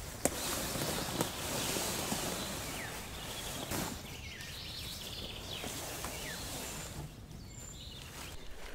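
Inflatable dinghy dragged by its rope through grass and undergrowth, the hull swishing and scraping over the plants, with footsteps in the grass.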